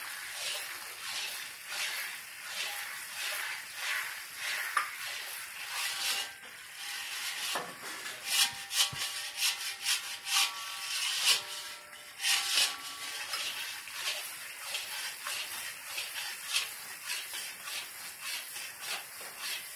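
Metal spatula scraping and stirring besan roasting in ghee in a metal kadai: repeated rasping strokes against the pan's bottom and sides.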